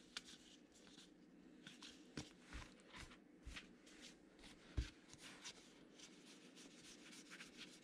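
Faint rustling and clicking of 2020 Gypsy Queen baseball cards being handled and slid through one by one, with a few soft low thumps.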